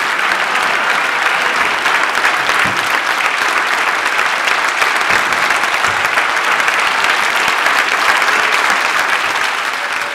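Large audience applauding: dense, steady clapping with no break.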